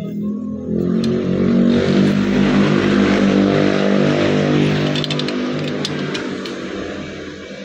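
A motor vehicle's engine going past, swelling over the first couple of seconds and then fading slowly away. A few light ratchet clicks sound near the middle.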